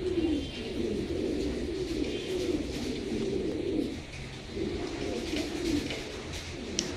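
Several pouter pigeons cooing, low rolling coos overlapping one another with short gaps, and a brief sharp click near the end.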